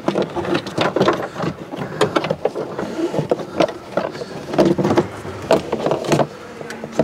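Irregular clicks, knocks and rattles of a Fiat 500's plastic rear side trim panel and seatbelt being handled as the belt is fed through the panel, with a bin lorry running in the background.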